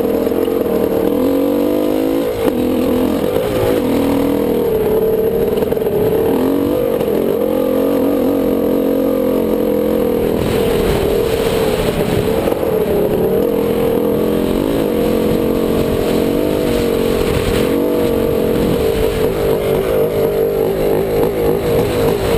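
Dirt bike engine running under constantly changing throttle, its pitch rising and falling as it rides the trail. Stretches of rushing noise come and go midway, and the engine note pulses unevenly near the end.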